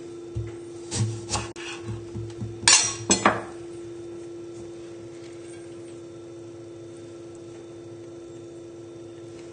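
A few clinks and knocks of crockery and cutlery over the first three and a half seconds, the loudest pair near the three-second mark, then a steady low hum for the rest.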